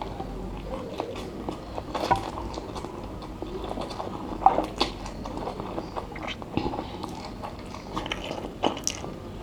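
Close-miked eating of spicy instant noodles: irregular wet chewing and mouth smacks, with occasional sharper clicks and slurps.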